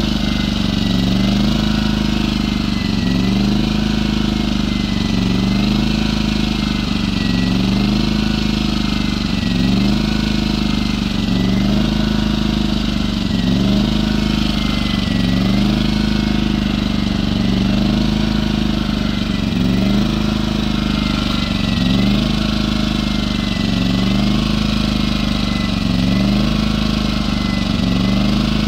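Firman 2100-watt inverter generator's small engine running steadily at idle, its speed rising and falling evenly about every two seconds.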